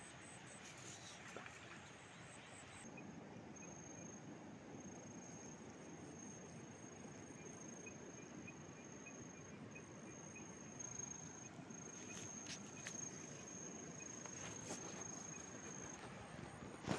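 An insect trilling, a thin steady high-pitched tone with a couple of short breaks, over a faint background hiss, with a few light clicks in the second half.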